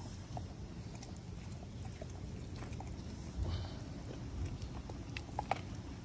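American Pit Bull Terrier licking and chewing a piece of raw meat on concrete: wet mouth sounds with scattered small clicks, a little louder a few times.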